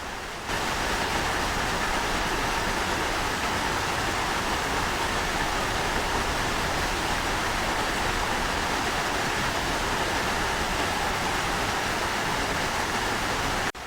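Steady, even rushing of water, typical of heavy rain or floodwater, starting about half a second in and cutting off abruptly just before the end.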